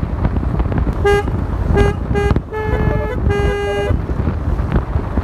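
Basuri telolet multi-tone horn on a motorcycle playing a tune: short stepped notes, then longer held notes around the middle. A steady low rumble runs underneath.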